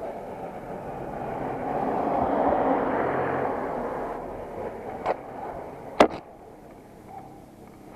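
A vehicle passing by, its noise swelling and then fading over about four seconds. About five and six seconds in come sharp clicks, the one at six seconds the loudest.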